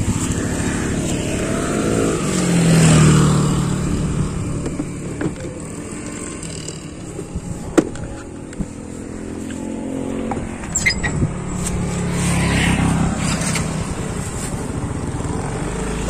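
Motorcycle engine running as the bike is ridden, its pitch rising about two to four seconds in, with a single sharp knock about eight seconds in.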